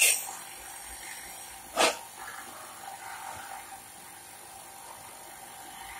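Two short sharp plastic clicks, one at the start and one just under two seconds in, as the black plastic end piece of a light-up pet collar is handled and pressed back together after battery fitting. A faint steady hum runs underneath.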